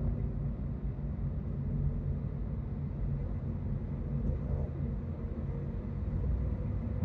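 Steady low rumble of road and engine noise inside a car's cabin while driving at highway speed, with a faint steady hum above it.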